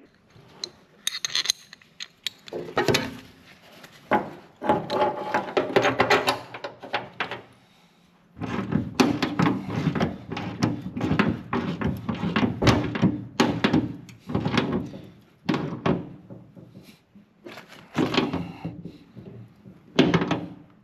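Metal knocks, clatter and rattling as a seat belt anchor bolt and bracket are fitted and tightened with a wrench into the steel body of a 1948 Willys Jeep CJ2A. Two longer stretches of rattling come about four and eight seconds in, among single knocks.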